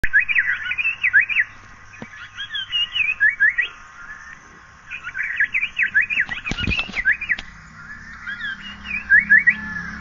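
Asian paradise flycatcher calling: phrases of quick, sweeping chirps a second or two long, repeated several times with short pauses between. There is a brief knock partway through.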